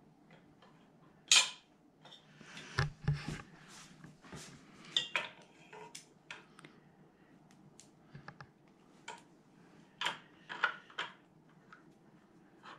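Metal parts and hardware being handled and set down: scattered clinks, clicks and knocks, the loudest a sharp click a little over a second in.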